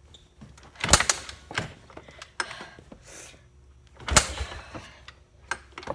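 A small motorbike's kickstart lever kicked twice, about a second in and again about four seconds in, each a loud clunk as the engine turns over without catching. The rider suspects the engine is flooded.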